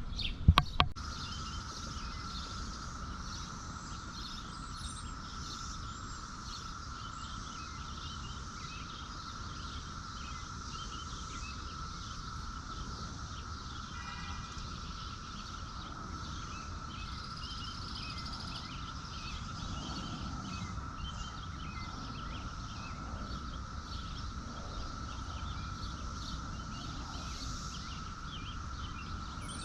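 Outdoor farmyard ambience: scattered small bird chirps over a steady high-pitched hum and a low rumble, with two sharp knocks about half a second in and a short call near the middle.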